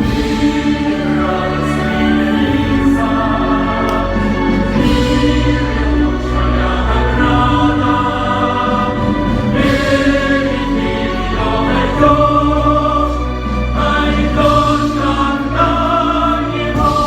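Choir singing with musical accompaniment.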